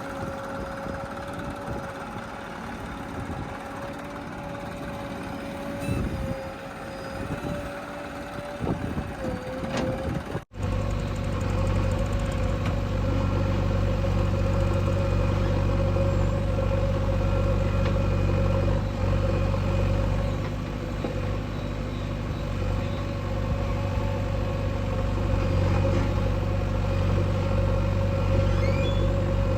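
Diesel engine of heavy machinery running steadily, with an abrupt cut about ten seconds in to a louder, deeper engine sound.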